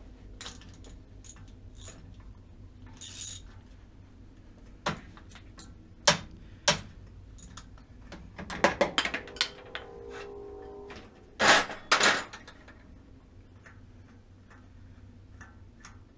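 Metal hand tools clinking and knocking as a ratchet, extension and spark plug socket are handled around the engine. The clinks are scattered and sudden, with a cluster a little past the middle and two louder knocks about three quarters of the way through. There is a short hiss about three seconds in.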